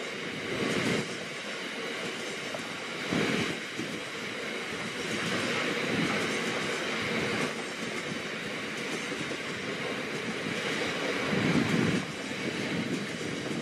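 Train of bogie tank wagons rolling past on the rails: a steady noise of wheels on track with louder surges every few seconds. It falls away about twelve seconds in as the last wagon goes by.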